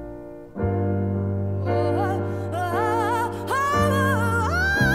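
Background music: sustained keyboard chords, with a melody sung with vibrato coming in about two seconds in.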